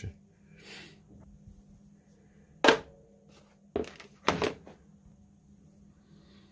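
Plastic keyless-go door handle and loose wires being handled on a wooden tabletop: three sharp clicks and knocks about a second apart, the first the loudest, with faint rustling between them.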